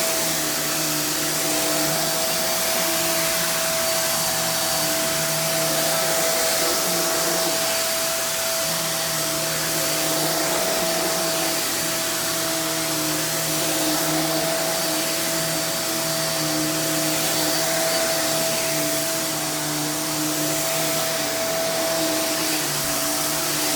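Hoover React Professional Pet Plus UH73220 upright vacuum running while vacuuming, with its brush roll spinning and pulling the machine forward. The sound is a steady rush of air under a constant motor whine.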